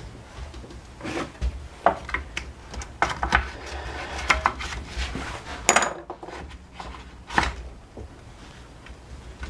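Irregular clicks, knocks and scrapes of small trimmer parts and hand tools being handled during reassembly, with sharper knocks near six seconds and again about seven and a half seconds in.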